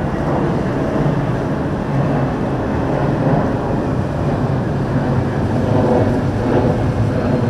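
Boat engines running with a steady, loud rumble on the water.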